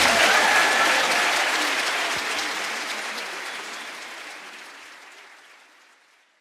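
Congregation applauding, the clapping steadily fading away to nothing.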